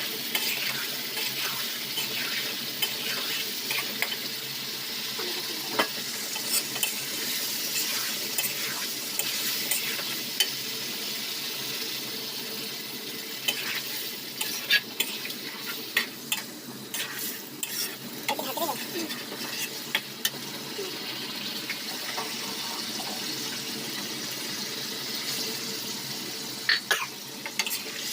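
Chicken sizzling as it fries in a pan, stirred with a spoon that clinks and scrapes against the pan now and then.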